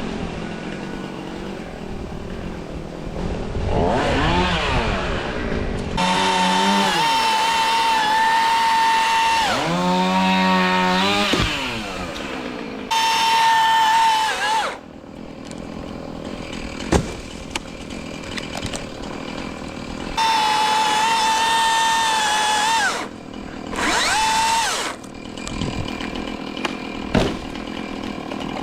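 Milwaukee cordless top-handle chainsaw run in several bursts of a few seconds each, a high electric whine that spools up and cuts off abruptly. A couple of sharp knocks fall in the pauses between bursts.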